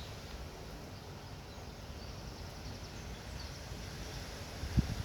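Strong wind blowing, a steady rush with low rumbling buffets of wind against the microphone. Near the end there is one sudden low thump, louder than anything else.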